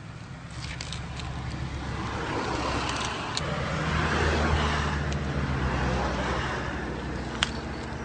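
A motor vehicle runs close by with a steady low engine hum, its noise swelling and then easing off as if passing. Over it come a few sharp clicks and scrapes from a package being cut open by hand, the sharpest near the end.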